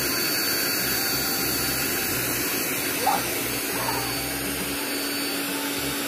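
Electric air pump running steadily as it inflates the ring of an inflatable rubber paddling pool.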